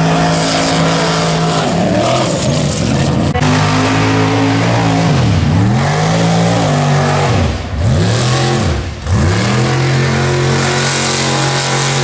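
Lifted mud-bog truck's engine running loud and revving, its pitch dipping sharply and sweeping back up several times as the throttle is let off and opened again.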